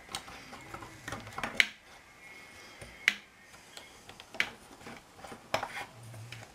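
Metal parts of a Hatsan Gladius air rifle action being handled and fitted back together: about five sharp clicks and knocks, the loudest about one and a half and three seconds in, over faint handling rustle.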